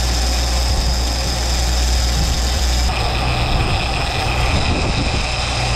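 Suzuki 140 hp outboard motor running steadily under way, with a low engine hum and the rush of wind and water around the boat; the mix shifts about three seconds in.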